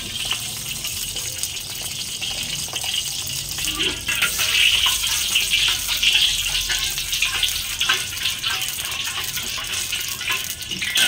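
Cooking oil poured into a hot stainless-steel wok and sizzling steadily, with a metal spatula scraping and clicking against the wok as it is stirred.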